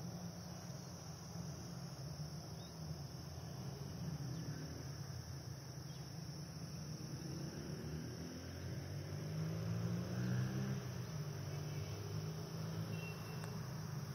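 Crickets in the grass chirring: a steady, high-pitched insect drone. Beneath it runs a low hum that grows louder about ten seconds in.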